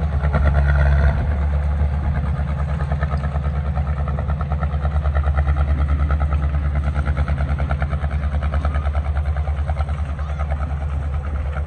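Heavy construction-machine diesel engine running with a fast, even throb.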